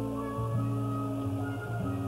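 Background music of slow, held notes that change every half second to a second.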